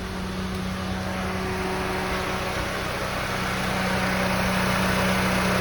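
Honda Civic FD's 1.8-litre four-cylinder engine idling steadily and smoothly, getting a little louder toward the end. There is no misfire shake now that the faulty ignition coil has been replaced.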